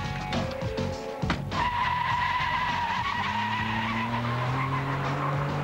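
Sports car pulling away hard, its tyres squealing for a few seconds starting about a second and a half in, then the engine revving up with rising pitch, over background music.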